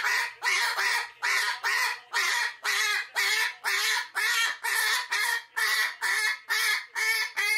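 Umbrella cockatoo screaming in a steady run of loud, harsh calls, about two a second, breaking off near the end.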